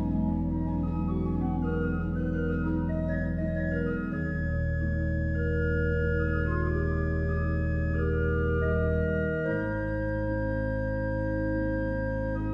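Organ playing slow, sustained chords over a deep held bass note. The bass moves to a new note about four seconds in and again around two-thirds of the way through, while the upper notes shift slowly above it.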